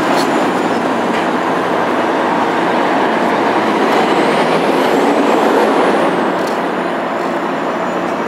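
Heavy city street traffic: engines of cars, trucks and buses running in gridlock, a steady loud noise with a slight swell in the middle.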